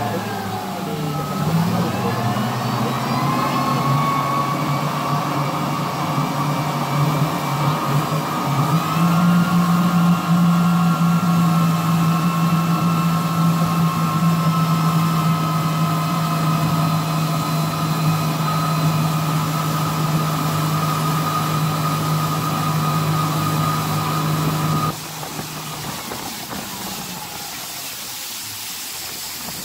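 River tour boat's engine running underway. It dips and then rises in pitch as it speeds up in the first few seconds, steps up again about nine seconds in and holds steady. About 25 seconds in it drops away suddenly to a quieter, even hiss of water and wind.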